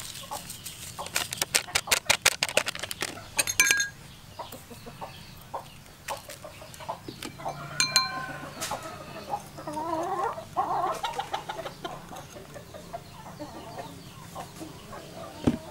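Domestic chickens clucking in short pitched calls, clearest in the middle stretch. A fast run of sharp clicks and rattles in the first few seconds is the loudest sound.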